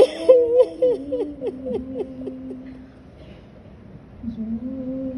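A female voice singing a salam unaccompanied: a run of quick falling, ornamented notes, a short pause about three seconds in, then a long held note.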